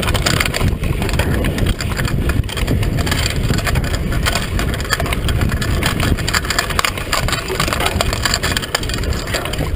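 Mountain bike clattering and rattling over a rough, rutted dirt track at speed, a dense run of small knocks over a steady rush of tyre and riding noise.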